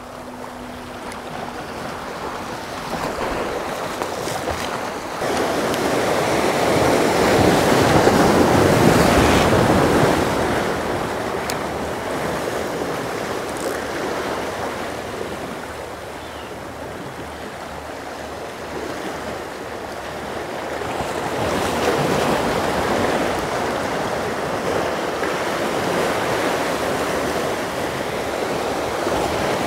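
Surf washing against the jetty, with wind. The wash swells loudest about eight seconds in and again a little past twenty seconds in.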